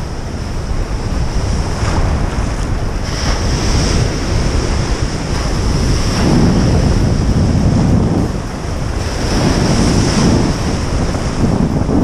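Ocean surf breaking and foaming wash rushing around in the shallows, with wind buffeting the microphone. The wash swells loudest about six seconds in and again about ten seconds in.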